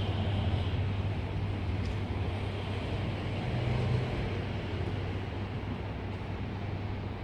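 Shinkansen bullet train moving through the station: a steady rumble and rush of noise with a constant low hum underneath.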